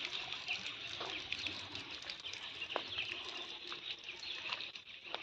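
A few soft, irregular footfalls of flat shoes on stone slabs and gravel, over steady background birdsong chirping.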